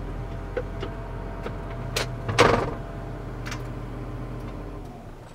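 Self-propelled crop sprayer's diesel engine running steadily, heard from inside the cab, with a series of clicks from the console switches and controls and a louder knock about halfway through. The engine sound dies away near the end.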